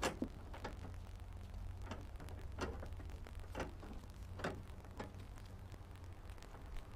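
Welded steel chain of a homemade mirror bracket clinking as it is twisted by hand to take up slack: a string of light metal clicks at irregular intervals over a steady low rumble.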